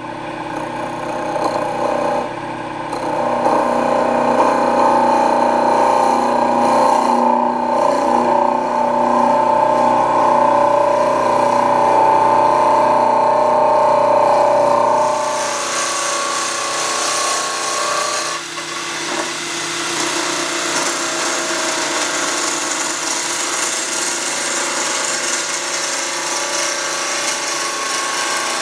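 Wood lathe running while a gouge cuts a spinning wood blank: a steady whine with the scraping hiss of the cut. About halfway through the sound changes to a brighter, hissier cutting noise as shavings peel off.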